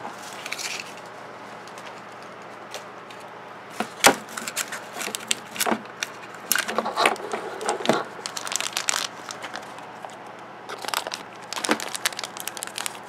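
Hands opening plastic blind-bag toy packaging: thin plastic wrapping crinkling and tearing, with scattered sharp clicks and taps of hard plastic pieces. Sparse at first, busier from about four seconds in.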